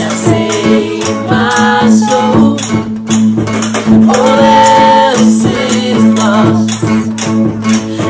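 A worship song sung by a mixed group of men's and women's voices over strummed acoustic guitar and drums, with one note held for about a second, about halfway through.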